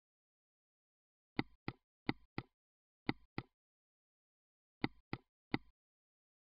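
Computer mouse clicks, nine short sharp clicks, most in quick pairs about a third of a second apart, with dead silence between them.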